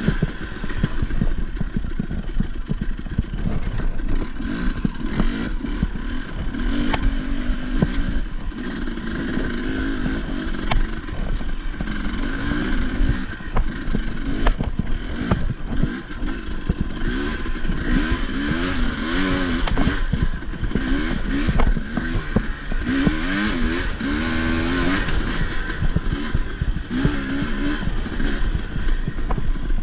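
Enduro dirt bike engine working hard through a race test, its revs rising and falling over and over as the throttle is worked. Frequent knocks and clatter run through it.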